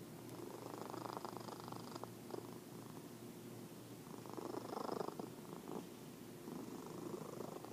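Fat orange tabby cat asleep, snoring and purring: a low purr that swells and fades three times.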